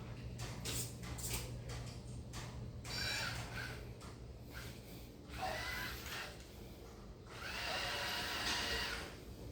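Small electric motors on a robotic-arm car whirring in short runs with clicks in between, the longest run near the end, over a steady low electrical hum.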